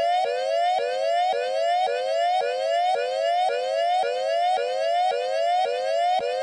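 Electronic railroad crossing warning sound, altered into a tone that rises in pitch and snaps back, repeating a little under twice a second.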